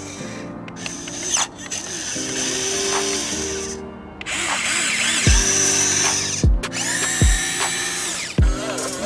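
Electric whirring of the Huina 1550 RC excavator's upgraded arm servos, starting and stopping in stretches as the arm digs and lifts a bucket of dirt. Under it runs electronic background music, with a kick drum thumping about once a second from midway on.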